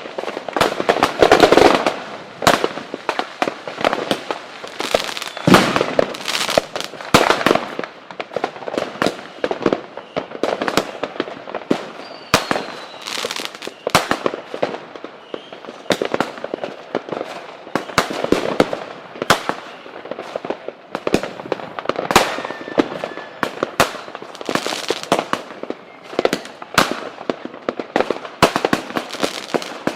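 Fireworks going off continuously: a dense barrage of overlapping bangs and crackles with no pause.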